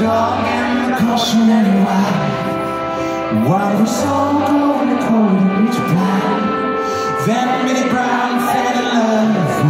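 Live pop performance: a male voice singing a melody into a microphone over grand piano accompaniment, amplified through the stage sound system.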